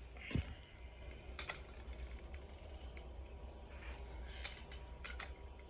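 Scattered light clicks and taps over a steady low hum, with one louder thump about half a second in.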